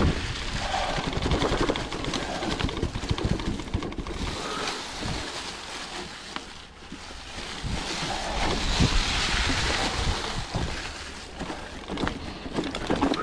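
Mountain bike rolling along a dirt trail covered in dry leaves: tyre noise over the leaves and ground, with frequent small knocks and rattles from the bike, and wind rumbling on the microphone.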